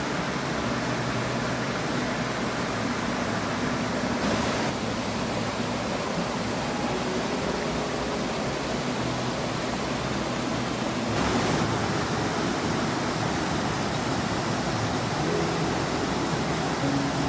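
Waterfall pouring heavily, a steady rush of falling water, its flow swollen by rainy-season rain.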